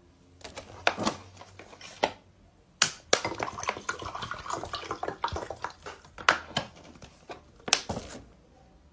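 Water poured from a plastic bottle into a drinking glass for about two seconds. A few clicks and knocks of the bottle and glass being handled come before and after the pour.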